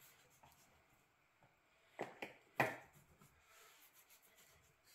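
Butcher's knife cutting the jowl from a pig's head near the bone on a plastic cutting board: quiet slicing and scraping, with a few short sharp knocks about two seconds in.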